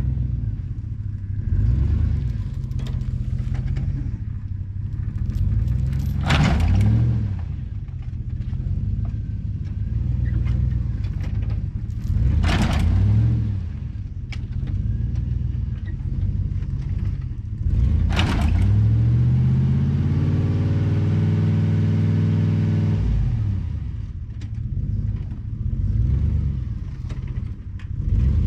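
Engine of a towing vehicle revving up and down under load while dragging a dead truck whose rear wheels are locked, held at a steady higher pitch for a few seconds about twenty seconds in. Three short, sharp noises are heard along the way.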